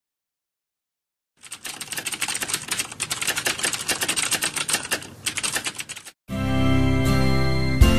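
Typewriter sound effect: rapid key clicks for about five seconds, paired with title text typing out on screen. The clicks stop and music comes in with a low bass.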